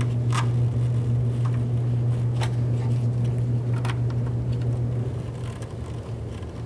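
A steady low hum with a few light clicks as fasteners are threaded by hand onto the emblem studs of a plastic truck grille; the hum eases off near the end.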